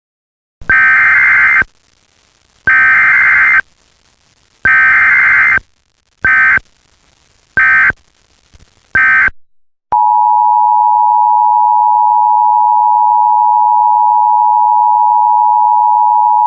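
Emergency Alert System tones. There are three loud, harsh bursts of SAME digital data tone about a second each, then three short bursts. About ten seconds in, the steady two-tone EAS attention signal starts and holds without a break.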